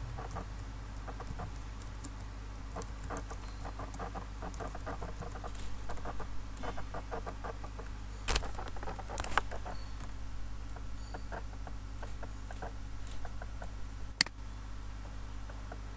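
Computer keyboard typing in quick, irregular taps for the first several seconds, then a few single, sharper mouse-button clicks, the loudest near the end, over a steady low electrical hum.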